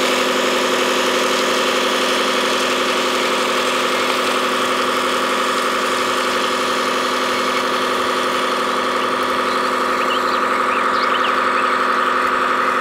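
Scale RC construction model running steadily: an even, idling engine-like sound with a constant whine.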